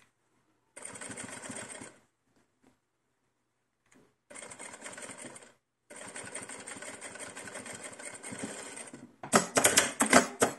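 Sewing machine stitching slowly in three short runs, stopping in between, as a decorative topstitch is sewn; near the end comes a louder clatter.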